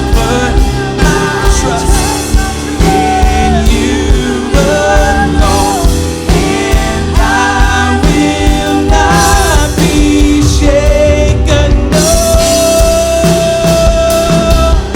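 Live worship band playing: piano, bass guitar and drums under sung vocals, with a long held sung note in the last few seconds.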